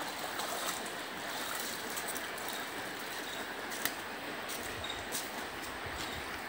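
A person wading through shallow floodwater, water sloshing and trickling around the legs, then stepping up onto concrete steps. The sound is a steady, even hiss with a few faint clicks.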